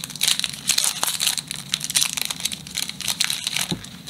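Foil wrapper of a Pokémon Sun & Moon booster pack crinkling and crackling in a quick, uneven run as it is opened and the cards are drawn out.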